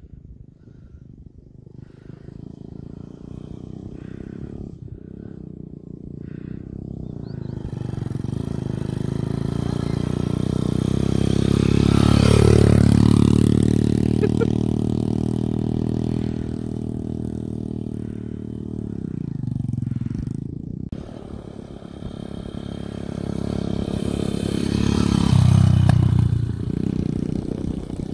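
Dirt bike engine running and revving as the bike rides toward and past, its pitch dropping as it goes by about twelve seconds in, then fading. It grows loud again near the end as the bike comes back close.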